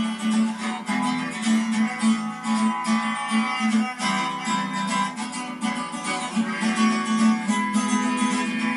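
Acoustic guitar strummed in a steady, chugging rhythm, with a harmonica playing held notes over it.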